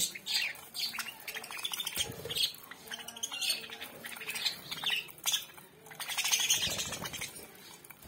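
A flock of budgerigars chattering: many quick chirps and short squawks overlapping, busiest about six seconds in.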